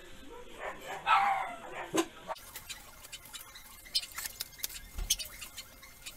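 Scissors snipping through a sheet of paper, with paper rustling: a run of irregular sharp clicks in the second half. A short pitched sound comes about a second in.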